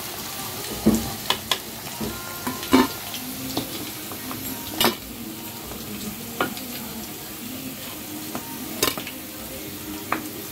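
Chicken pieces deep-frying in hot oil with a steady sizzle, while a steel spoon clinks and scrapes against metal now and then as the fried pieces are lifted out.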